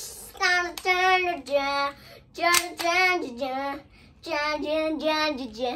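A young boy singing a tune in three short phrases, with held notes that step up and down in pitch.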